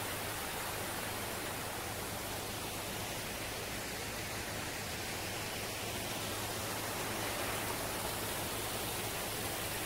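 Steady rushing of a small mountain stream running over rocks.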